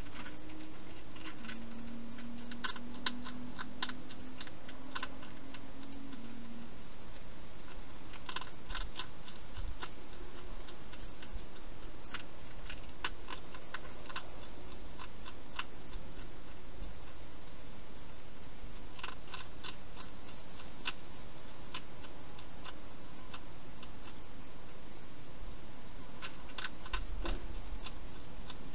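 Wild hedgehog chewing food at a bowl, heard as bunches of quick sharp clicks every few seconds over the camera's steady hiss.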